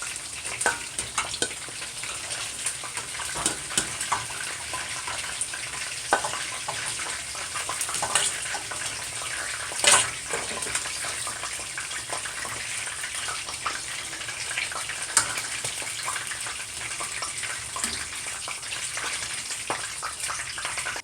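Chicken pieces frying in hot oil in a pot: a steady sizzle with frequent crackling pops, the sharpest about ten seconds in.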